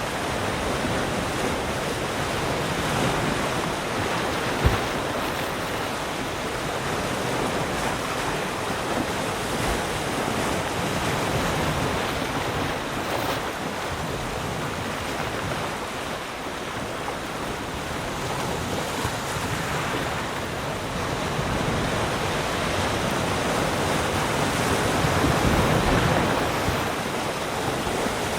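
Ocean waves breaking and washing on a shore, a continuous rushing noise that swells and eases slowly, with one brief low thump about five seconds in.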